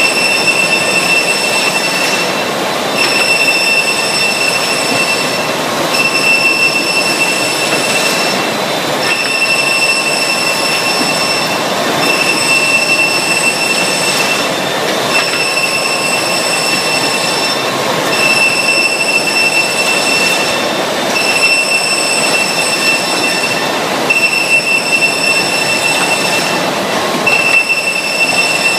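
Panel loader and sizing and edge-banding line running. A steady rushing machine noise carries a high whine that drops out briefly about every three seconds.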